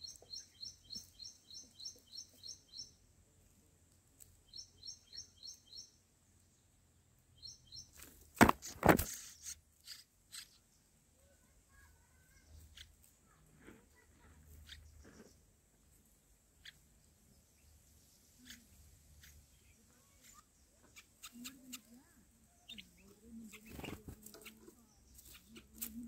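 Rapid runs of high, evenly spaced chirps, about six a second, in three short bouts over the first eight seconds: red-whiskered bulbul nestlings begging. Two loud knocks come just after, then only faint clicks and rustling.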